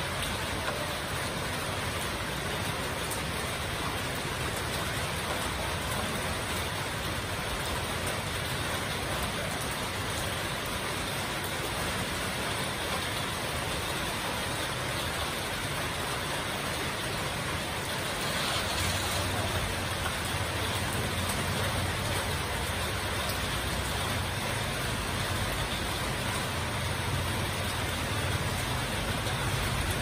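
Heavy rain falling steadily on corrugated metal roofs, an even hiss. About two-thirds of the way through, a low engine rumble joins and the sound grows slightly louder.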